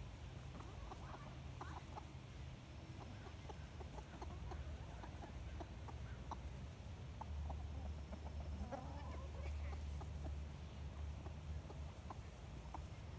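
Domestic hens clucking softly as they forage, many short clucks scattered throughout with a brief longer call around the middle, over a steady low rumble.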